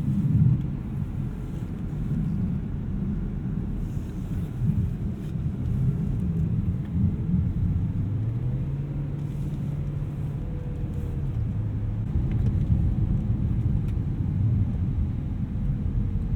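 BMW E92 M3's V8 engine running at low revs under a steady low rumble, its pitch rising smoothly about eight seconds in and holding for a few seconds as the car gathers speed.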